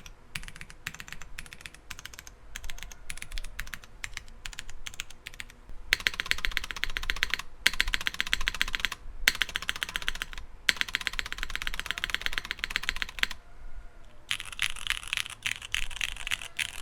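Typing on a Ciel60 mechanical keyboard with stock Cherry MX Purple switches: short, lighter bursts of keystrokes at first, then fast continuous typing from about six seconds in, broken by a few brief pauses.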